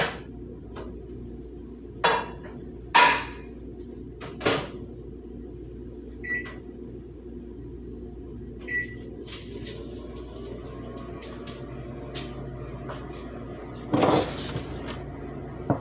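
Microwave oven being shut and set: a few knocks and clunks from the door, two short keypad beeps, over a steady low hum.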